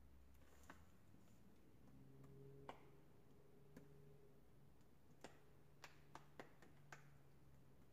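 Near silence: room tone with a faint low hum and about eight faint scattered ticks, most of them in the second half.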